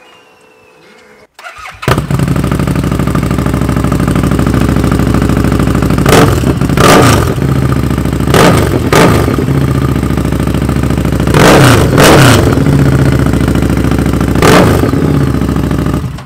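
2017 Harley-Davidson Street Rod 750's V-twin engine, fitted with an aftermarket Vance & Hines exhaust, started about two seconds in and left idling loudly. Several quick throttle blips rise and fall, some in pairs, and the engine shuts off just before the end.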